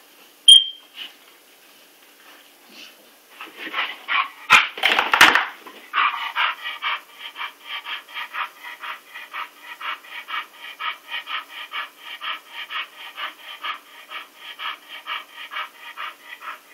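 English Bull Terrier panting fast and steadily, about four breaths a second, after a loud scuffling burst with a few sharp knocks about four to six seconds in.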